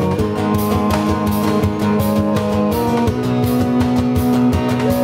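Live acoustic band playing an instrumental passage with no vocals: strummed acoustic guitar, bowed electric cello and a Native American style flute holding long notes over a steady beat of hand percussion.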